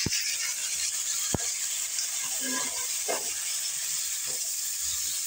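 Fish heads and tail pieces sizzling in hot oil with onions in a kadai, being stirred with a metal ladle. Two sharp knocks, one right at the start and one just over a second in.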